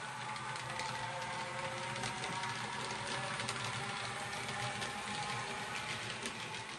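OO gauge model train running on the layout: a steady motor and gear whine with light, frequent clicking from the wheels on the track.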